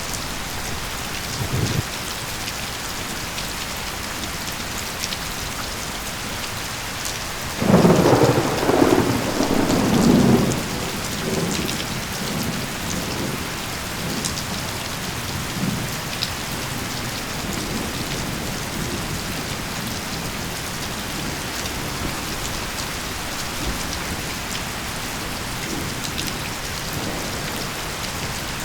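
Steady rain falling. A rumble of thunder swells up about a quarter of the way in and dies away after about three seconds.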